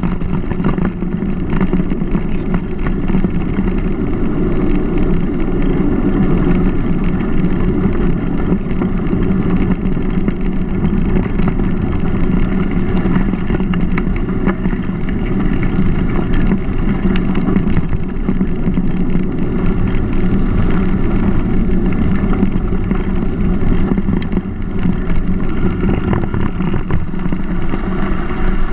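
Steady rumbling ride noise from a mountain bike rolling along a gravel towpath, with tyre roar and wind buffeting the camera's microphone and a few light clicks and rattles from the bike.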